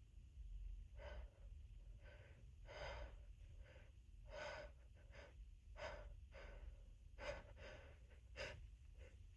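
A person's faint, short, catching breaths, about a dozen of them, coming unevenly every half second to a second.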